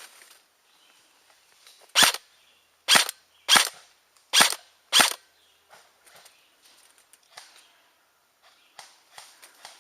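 Airsoft gun firing five sharp single shots in about three seconds, the shots coming roughly half a second to a second apart. Faint ticks and rustling follow.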